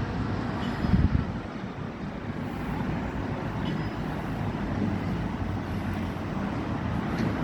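Steady outdoor rumble of street traffic, with a brief louder swell about a second in.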